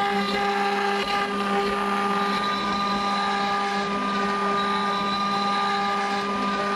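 ShopBot desktop CNC router spindle running with a steady whine as its bit carves a cherry panel on a finishing pass.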